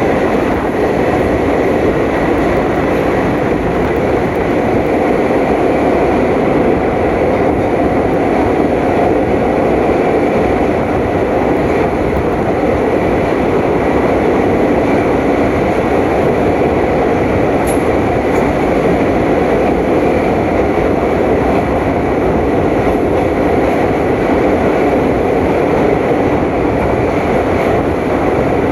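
Passenger train running along the track: a steady, loud rumble of wheels and carriage that holds even.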